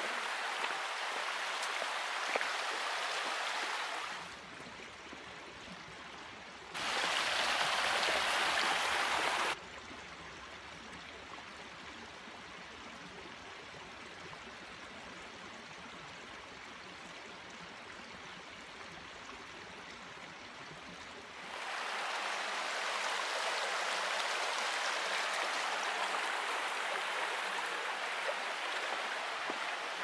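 Woodland stream water rushing steadily over rocks. It drops away about four seconds in, comes back much louder for a few seconds, stays softer for a long stretch, then rises again near two-thirds of the way through.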